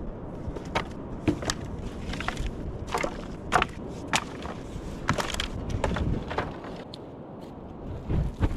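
A series of irregular sharp knocks and clacks, about a dozen over several seconds, the loudest about three and a half seconds in, over a steady low rumble.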